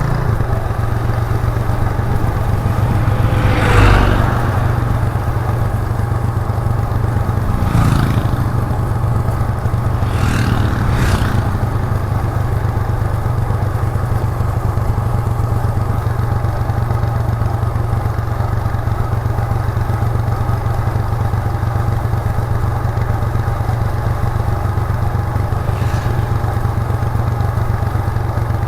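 Exhaust note of a 1998 Suzuki GN125's single-cylinder four-stroke engine cruising at a steady speed. A few brief louder noises go by: the loudest about four seconds in, weaker ones around eight and eleven seconds and near the end.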